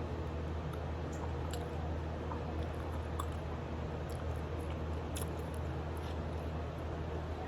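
Someone chewing and biting adobo chicken feet: small scattered wet clicks and crunches of eating, over a steady low background hum.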